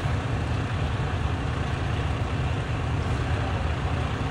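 Fire engine's diesel engine idling close by with a steady low rumble.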